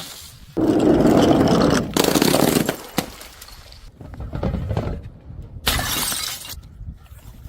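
Glass bottles shattering in a series of sudden crashes, the loudest about half a second in.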